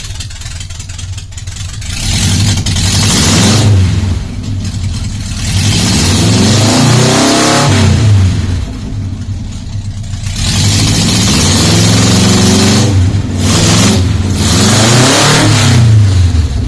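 Car engine, restarted after stalling, revved in several long surges with its pitch climbing and falling and quieter idling between. The rough exhaust note is what the owner calls its snoring.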